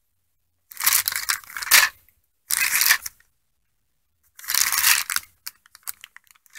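Clear plastic parts bags crinkling as they are handled, in three rustling bursts, followed near the end by a run of small crackles.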